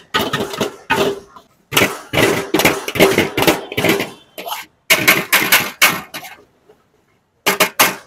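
Metal ladle striking and scraping a large steel wok while stir-frying fried rice: a loud, rapid metallic clatter with a ringing note, in runs broken by short pauses and a gap of about a second near the end.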